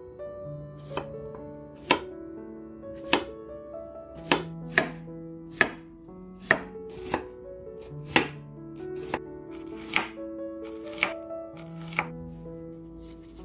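Kitchen knife slicing cucumber and onion on an end-grain wooden cutting board: about a dozen sharp knocks of the blade on the board, roughly one a second, over soft background piano music.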